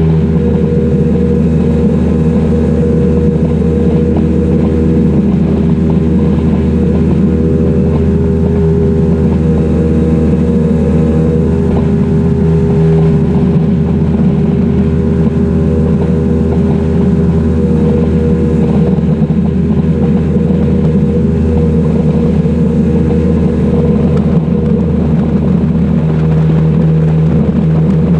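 Outboard motor on a flats skiff running steadily at cruising speed, a constant loud drone with a slight shift in pitch a couple of times.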